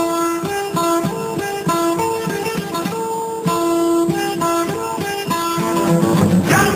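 Background music: a plucked guitar playing a melody of separate notes, with no singing.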